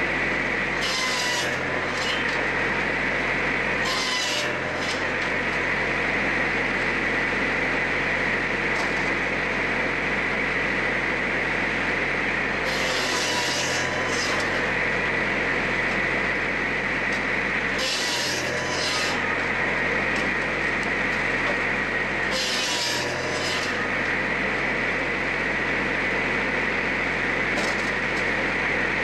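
Tajfun Little Ripper docking saw running steadily with a constant high tone. Its blade cuts through wood about five times, each cut a brief hissing burst.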